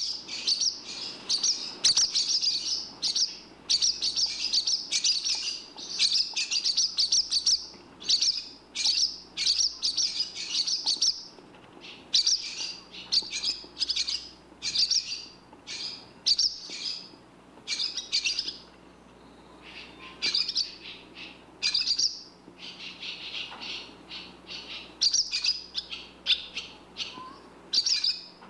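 Barn swallow twittering: rapid runs of high-pitched chattering notes following one another almost without a break, thinning out for a few seconds about two-thirds of the way through.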